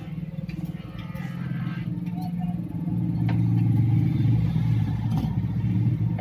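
An engine running steadily with a low hum, growing louder about halfway through, with a few light clicks over it.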